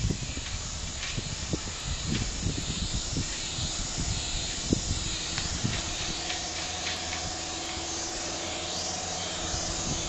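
Steady outdoor hiss over forested hills, with wind rumbling on the microphone. A faint steady hum comes in about halfway through and fades near the end.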